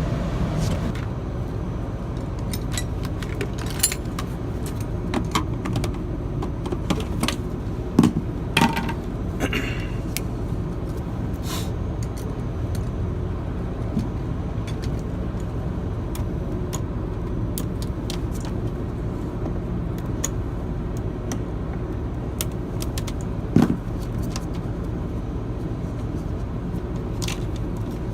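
Scattered small metallic clicks and clinks of tools and multimeter probes being handled, over a steady low rumble. The sharpest clicks come about eight seconds in and again near the end.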